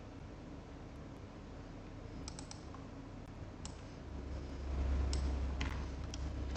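Faint, scattered clicks of a computer mouse and keyboard keys, a quick cluster of three then single clicks every second or so, with a low rumble rising from about four seconds in.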